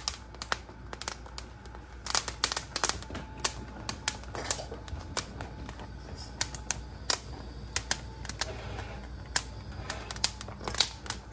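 Poblano chiles charring directly over gas burner flames, their skins crackling and popping as they blister: a run of sharp, irregular pops and clicks.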